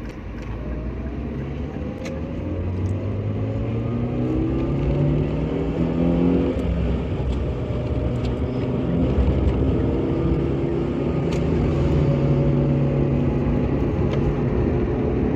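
Car engine heard from inside the cabin while driving, accelerating: its pitch climbs for about six seconds, drops, then climbs again and holds steady, with the engine growing louder.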